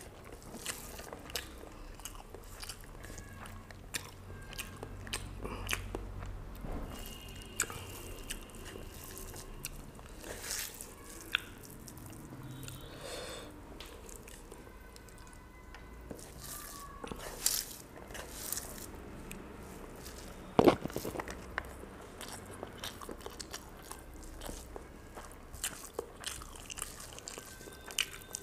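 Eating by hand: chewing rice, greens and fried fish with many short mouth clicks, and fingers mixing rice on a plastic plate. One click about three-quarters of the way through is louder than the rest.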